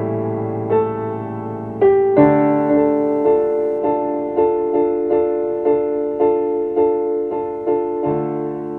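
Slow, gentle piano music: a few chords, then notes struck evenly about twice a second, with the sound gradually fading toward the end.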